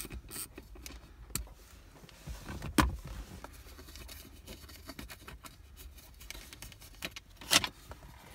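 Scattered small clicks and taps from a screwdriver, loosened metal screws and a plastic console cover plate being worked loose by hand. There is a sharper knock about three seconds in and another about seven and a half seconds in.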